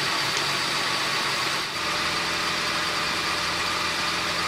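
Honda Pilot's 3.5-litre V6 engine idling steadily.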